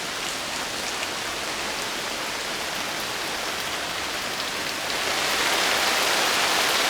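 Heavy rain falling steadily, an even hiss with faint scattered drop ticks, growing louder about five seconds in.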